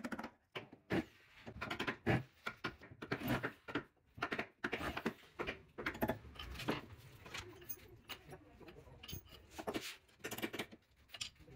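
Irregular clicks, taps and knocks of carpenters' hand tools, screwdrivers setting screws into metal hinges on plywood boxes.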